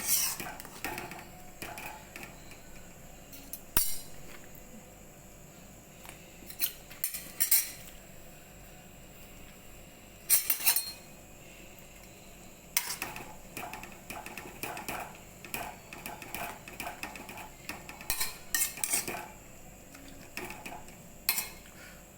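A spoon scraping and clinking against a kadhai in short bursts every few seconds as noodles are stirred in the pan.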